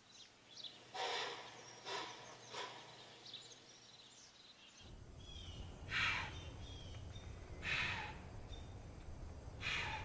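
White-tailed deer chuffing: three short breathy snorts in the first few seconds, then three stronger blows about two seconds apart. These are the calls deer use to send warnings or to mark territory. Birds chirp faintly in the background.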